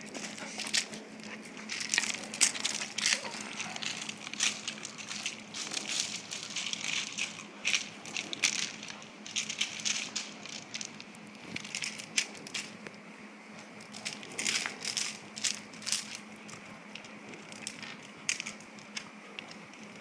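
Irregular crunching, crackling and scraping as two dogs tug and scuffle over a rope toy on a spring pole, their paws shifting on gravel; the strokes come in uneven clusters throughout.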